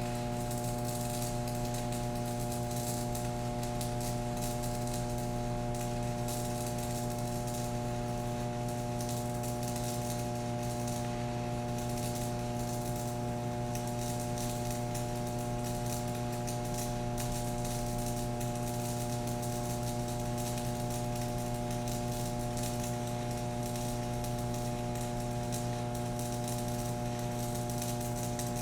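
Stick-welding arc from a small inverter welder set to 80 amps, crackling and sizzling steadily as the rod burns, over a constant electrical hum.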